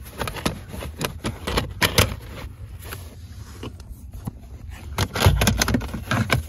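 Hard plastic interior trim panel of a car being handled and fitted: scattered clicks, taps and scrapes of plastic, with a denser run of knocks about five seconds in.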